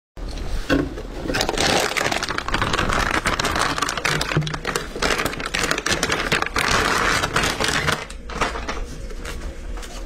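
Crinkling and rustling handling noise with many small sharp clicks and knocks, thinning out near the end.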